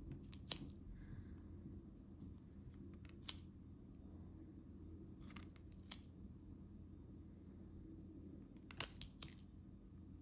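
Quiet handling of photo cards: a few short clicks and scrapes as the cards are picked up and set down, over a low steady room hum.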